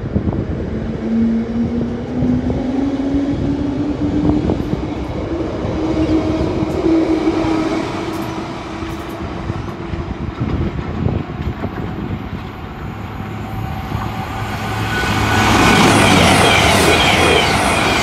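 A Bakerloo line 1972 Stock train pulling away, its traction motors whining slowly upward in pitch. About fifteen seconds in, an Avanti West Coast express train passes at speed on the main line: a loud rush of wheel and air noise.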